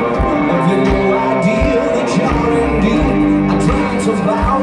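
Rock band playing live through a large concert sound system, with drums, guitar and singing, heard from within the crowd.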